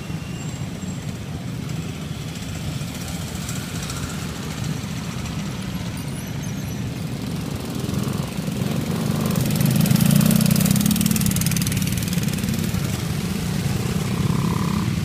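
Small minibike and pit bike engines running as the bikes ride past one after another, a steady drone that swells about two-thirds of the way through as a bike passes close.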